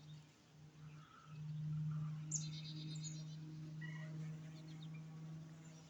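A steady low hum that swells about a second in and then slowly fades, with small birds chirping briefly, once near the middle and again a little later.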